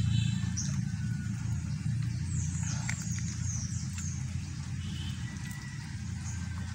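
Hand-eating sounds of a mukbang: cooked chicken being pulled apart by hand and chewed, with small wet clicks, over a low steady rumble. High chirping calls sound several times in the background, a run of falling chirps in the middle.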